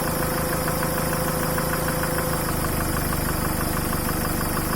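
Mitsubishi 4D56T turbo-diesel engine idling with a regular knock, traced to damage from a rag sucked into the intake that bent a connecting rod and an intake valve. The knock is being tracked down by cutting out the injectors one cylinder at a time, and the engine's note changes about two and a half seconds in.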